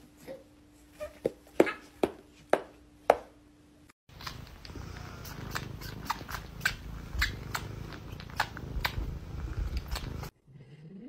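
A handful of sharp clicks, then a cat purring right against the microphone: a low, steady rumble with scattered clicks that cuts off suddenly near the end.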